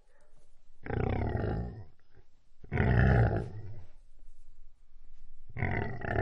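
A large animal giving three long, deep calls, each about a second, the last starting near the end.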